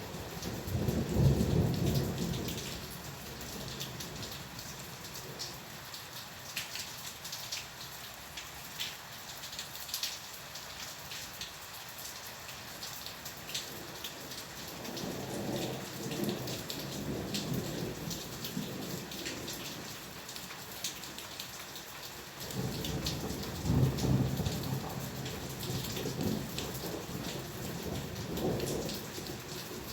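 Steady rain hissing, with many sharp drop hits. Thunder rolls three times: once right at the start, again about halfway through, and in a longer roll near the end. The first and last rolls are the loudest.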